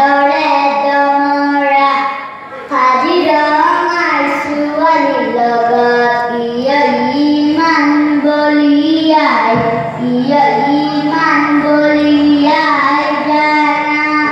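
A young boy singing solo into a microphone, holding long notes and sliding between pitches, with a short pause for breath about two seconds in.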